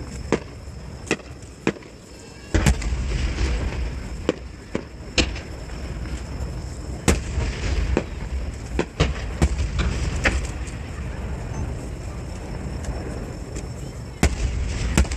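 Fireworks bursting: sharp bangs at uneven intervals, a dozen or more, over a continuous low rumble of booms. The rumble grows louder about two and a half seconds in and again near the end.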